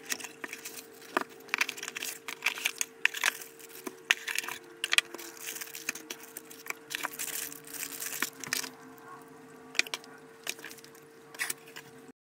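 Plastic packaging bags crinkling and crackling in irregular bursts, with light knocks of cardboard and parts being set down on a table, as a boxed car stereo kit is unpacked. A faint steady hum sits underneath.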